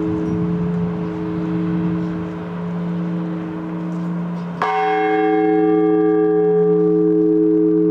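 A large church bell tolling the blagovest, the slow measured strokes that call people to the liturgy. The low hum of the previous stroke is still ringing when a single new stroke lands just past halfway, adding a bright clang of higher overtones over the hum.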